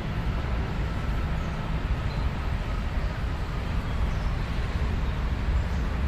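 Steady low rumble of vehicle noise, with no sudden bangs.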